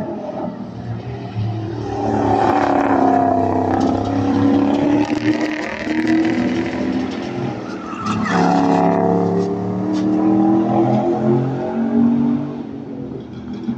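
Super Saloon race car engines running hard past the spectator fence, rising and falling in pitch through the gears. The sound swells in twice, first about two seconds in and again about eight seconds in, and fades near the end.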